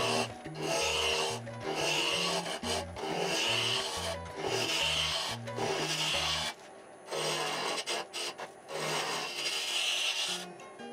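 Spindle roughing gouge cutting a spinning shedua (ovangkol) blank on a wood lathe, sped up: scraping cuts come about once a second. Background music with a bass line plays under it and drops out about two-thirds of the way through.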